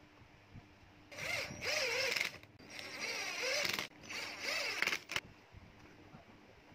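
Cordless 12 V drill/driver running in three short bursts, driving screws into a wooden block. The motor's whir wavers up and down in pitch within each burst.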